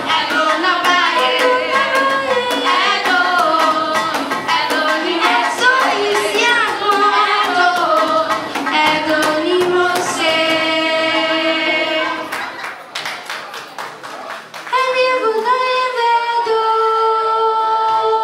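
Girls singing a traditional song into microphones, with sharp percussive beats under the melody. The singing drops away briefly about two-thirds of the way through, then comes back with long held notes.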